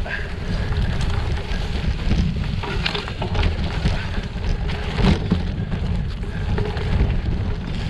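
Bicycle tyres rolling over a rough dirt and gravel track, with a continuous low rumble, scattered rattling clicks from the bike, and wind buffeting the microphone.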